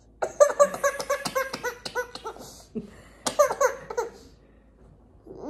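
Baby laughing hard: a run of quick, repeated belly-laugh bursts for about two seconds, then a second short burst of laughs about three seconds in.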